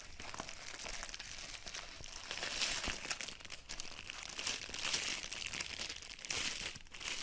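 Plastic packaging crinkling and rustling as it is handled and opened by hand, a dense, irregular crackle with brief louder patches.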